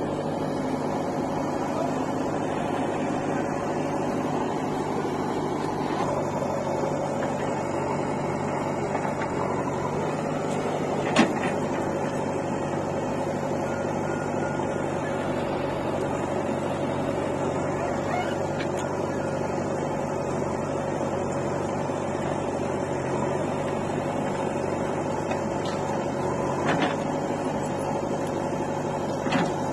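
Diesel engines of a backhoe loader and a tractor running steadily at an even, unchanging pitch. A sharp knock comes about eleven seconds in, and two fainter ones come near the end.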